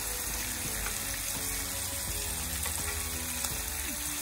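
Slices of meat sizzling on a tabletop Korean BBQ grill pan, a steady frying hiss as they are turned with chopsticks.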